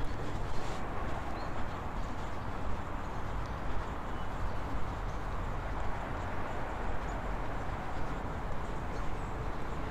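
Steady outdoor background noise, an even rushing hiss without any distinct event.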